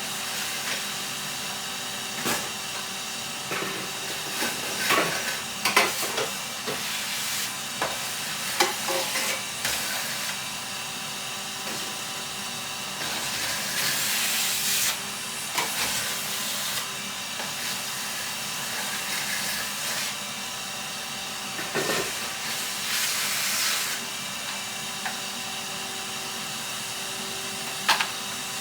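Vacuum cleaner running steadily, with a louder rushing hiss twice as the nozzle moves, and scattered knocks and clicks.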